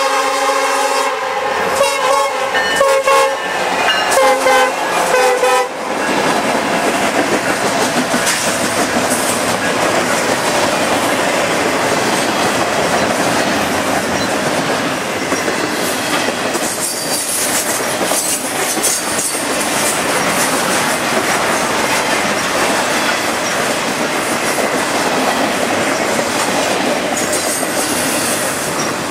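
Nathan K5LLA five-chime air horn on a Norfolk Southern SD70M-2 locomotive: one long blast ending about a second in, then a quick string of short blasts in a horn show that stops about six seconds in. After that comes the continuous rumble and clickety-clack of a double-stack intermodal freight train passing close by, its wheels clattering over the rail joints.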